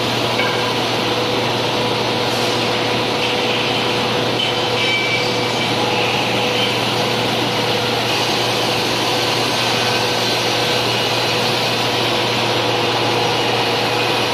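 Large CNC band saw running: a steady machine noise with a constant hum and whine that does not change.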